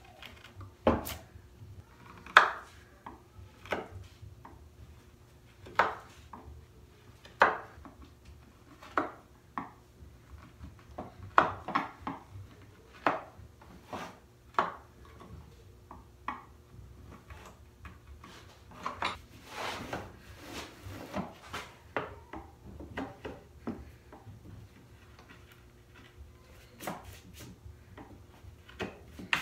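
Hand tools tapping and clicking on a walnut board: a steel rule and marking knife being set down, lined up and drawn along as cut lines are laid out. Scattered sharp clicks throughout, with a few longer scratchy strokes about two-thirds of the way through.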